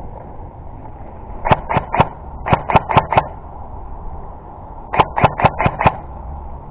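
Airsoft gun firing in three quick strings of sharp shots: three, then four, then five, about four a second.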